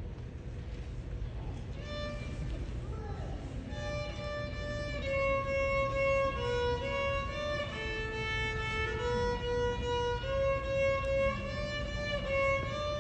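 Solo violin played with the bow: after a short gap near the start it picks up a slow melody of held notes moving step by step, with a steady low background hum underneath.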